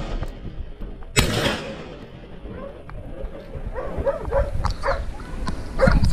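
A single shotgun shot about a second in, followed from about four seconds in by dogs barking repeatedly, several barks a second.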